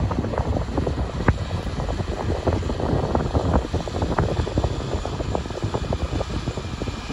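Class 43 HST diesel power car running as the train rolls slowly past, with frequent short clicks and knocks scattered over a steady low rumble.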